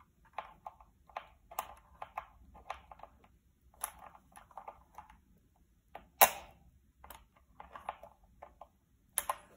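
Irregular plastic clicks and scraping from pullers working a keycap and a hot-swap switch out of an AKKO 5108S mechanical keyboard, with one sharp click about six seconds in and a quick run of clicks near the end.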